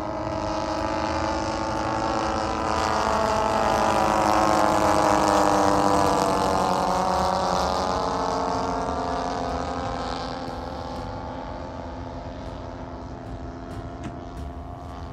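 The twin piston engines of a Douglas C-47-type vintage transport plane flying past. The propeller drone grows louder to a peak about five seconds in, then drops in pitch and fades as the plane moves away.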